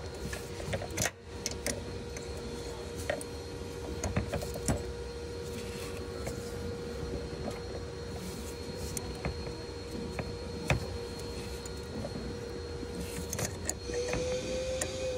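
Scattered light clicks and knocks of hand tools on metal, over a steady hum. A small motor whines briefly near the end.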